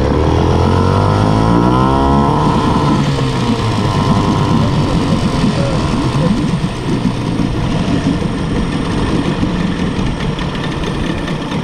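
Small Yamaha outboard motor just pull-started on choke, revving up over the first two seconds or so, then running on at a steadier speed.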